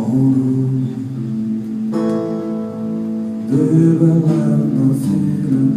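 Live music: guitar chords with a long held note sounding over them from about two seconds in, then a change of chord.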